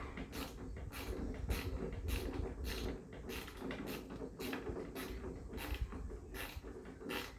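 A hand tool turning a stubborn screw out of an old wooden wagon's wheel assembly, making a rhythmic creak about twice a second, one stroke after another.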